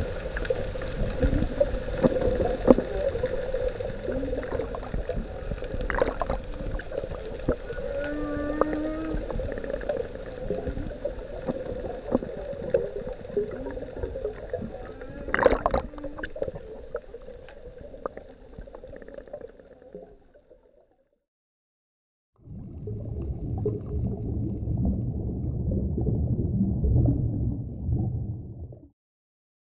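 Humpback whale calls heard underwater: short pitched calls near the start and again about eight seconds in, over a steady hum and scattered clicks, fading away about two-thirds of the way through. After a brief silence, a low rumble lasts about six seconds.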